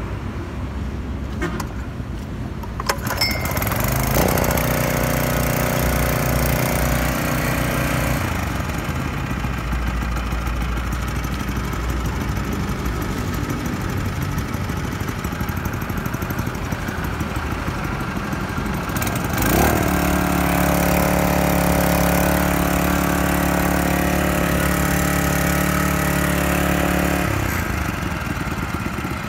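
Kubota GS90 2.2 hp small gasoline engine on a test run: it starts about four seconds in and runs, its note changing around eight seconds in and again with a rise in pitch near twenty seconds. It stops abruptly near the end.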